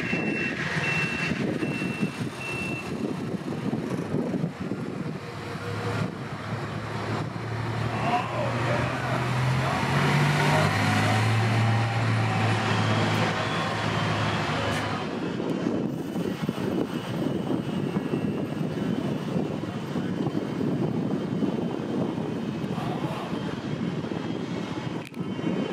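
A backup alarm beeps for the first few seconds. Then a distant diesel locomotive engine runs, its note stepping up in pitch several times as it throttles up, and it settles into a steady rumble.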